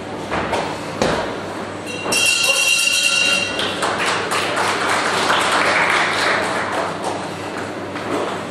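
Two thuds of blows landing, then a boxing-ring bell rings for about a second and a half and stops suddenly, marking the end of the round. The crowd then applauds.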